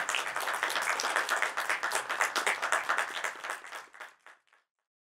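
Audience applause, a dense patter of many hands clapping, fading away about four seconds in.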